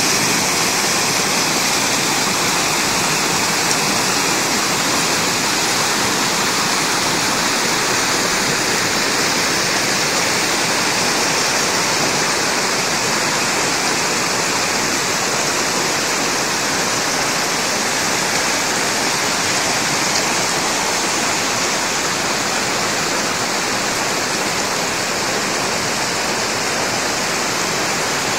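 Shallow mountain stream rushing over boulders and small rapids, a steady loud rush of water.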